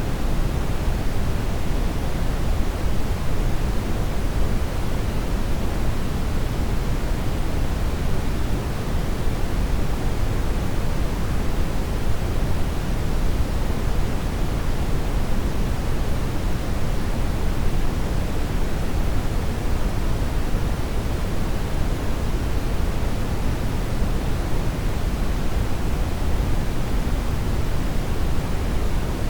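Steady generated noise: a constant, even hiss that never changes, with most of its weight in the low end and gradually less toward the top.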